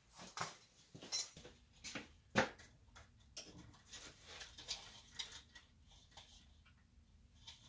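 A five-arm metal chandelier and its hanging chain being handled and hooked up: a scatter of light clinks and clicks, with one louder knock about two and a half seconds in.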